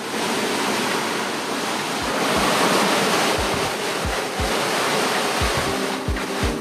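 Squall wind and rain with breaking waves and spray rushing past a sailing catamaran, a steady loud rush of noise. From about two seconds in, irregular low thuds of gusts buffeting the microphone.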